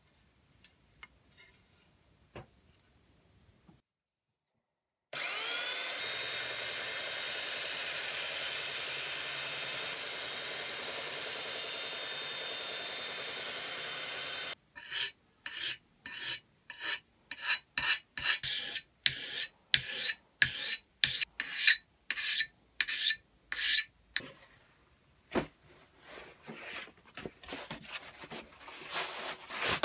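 Bosch belt sander starting about five seconds in and running steadily as a steel axe blade is ground on its belt, then stopping abruptly. It is followed by rhythmic scraping strokes, about two a second, and then softer rustling near the end.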